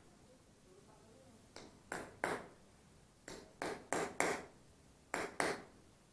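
Hammer blows driving a fastener into a wall to mount a curtain-rod bracket: about nine sharp, ringing strikes in three quick groups of two to four.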